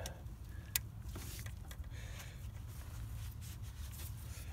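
Faint handling of a plastic wiring connector being worked onto an A/C compressor, with one sharp click about three quarters of a second in.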